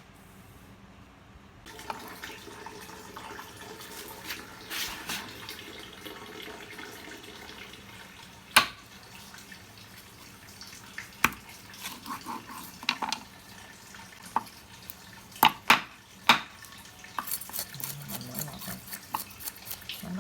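Water running from a tap, with a handful of sharp knocks, the loudest about eight and a half seconds in and a cluster around fifteen to sixteen seconds, and a patter of small clicks and splashes near the end.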